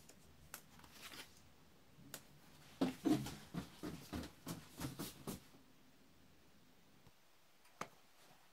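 Light handling sounds on a tabletop: a quick run of small taps and paper rustles from about three seconds in to about five and a half seconds, and one more click near the end, as paper templates are handled over a clay slab.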